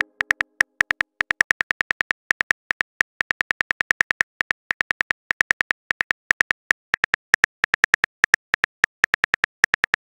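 Smartphone keyboard typing sound effect: a fast, uneven run of short, crisp clicks, about seven a second, one for each letter of a text message being typed.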